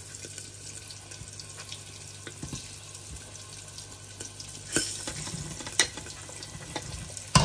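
Food sizzling in a pan over a steady low hum, with a few sharp clinks of a utensil, the loudest near the end.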